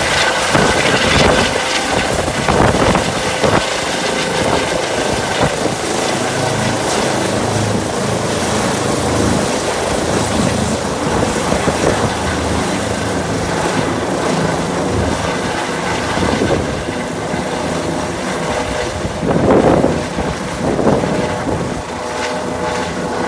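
Eurocopter EC135 medical helicopter lifting off and climbing away overhead, its steady rotor and turbine noise slowly growing fainter.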